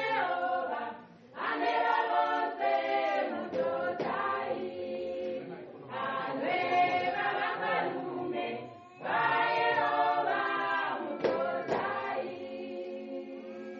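A choir of mixed voices singing unaccompanied, in phrases of a few seconds with short breaks between them.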